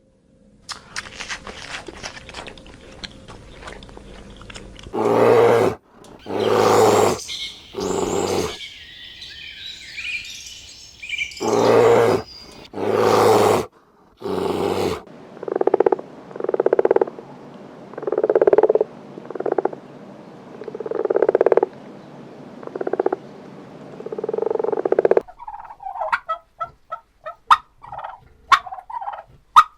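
Farm animals calling: a few loud calls from about five seconds in, then a run of shorter calls roughly one a second, then quick chattering calls near the end.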